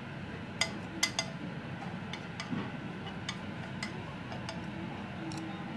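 Chopsticks clicking and tapping against a ceramic-coated non-stick frying pan while stirring strips of bell pepper: three sharper clicks in the first second and a half, then lighter, scattered taps, over a steady low rumble.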